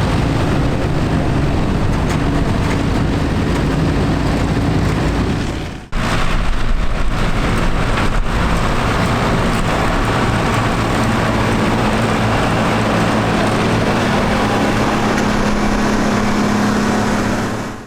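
Heavy engine running steadily with a low rumble. It fades out briefly about six seconds in, comes back at once, and near the end a hum sits a little higher in pitch.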